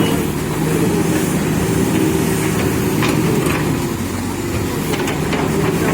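JCB backhoe loader's diesel engine running steadily while working, with a couple of faint clicks.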